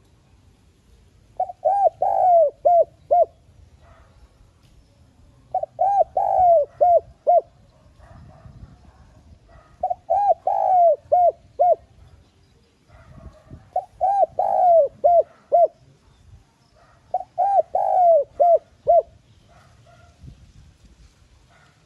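Spotted dove cooing its song: five phrases, about one every four seconds. Each is a quick run of several short, falling coos, loudest at the start.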